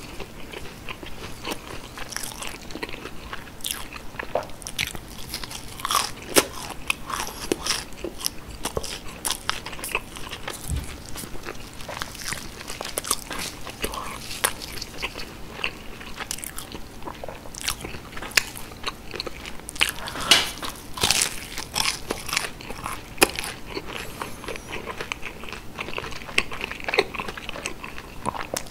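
Close-miked crunching and chewing of breaded, deep-fried cheese sticks: many crisp bites and crackles of the crumb crust.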